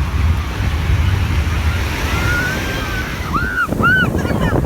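Ocean surf washing in with wind buffeting the microphone. Two short, high, arching calls sound about three and a half seconds in.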